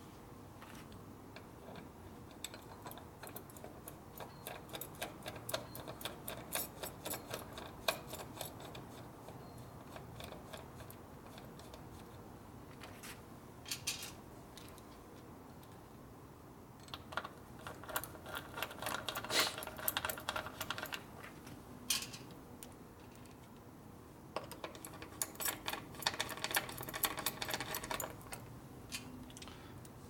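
A hand bit driver with a Phillips bit turning small screws, its ratchet clicking in quick runs of fine, even clicks, three main runs with pauses between.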